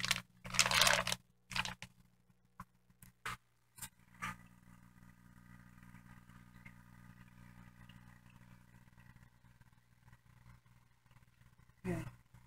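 Faint steady hum and fizz of an aquarium air pump driving an air stone and an air-lift sponge filter in a fish tank. In the first few seconds a brief loud rustle and a few sharp clicks come from handling.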